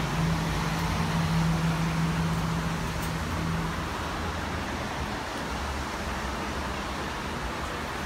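Steady outdoor background noise with a low steady hum that stops about four seconds in.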